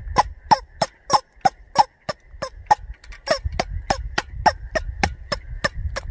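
Squeaking rubber chicken toy beaten again and again against a rifle and its scope. Each hit is a short slap with a brief squeak, about three a second, kept up throughout.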